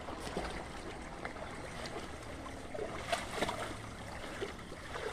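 Shallow water trickling in a small drainage ditch, with a few small splashes and knocks about three seconds in.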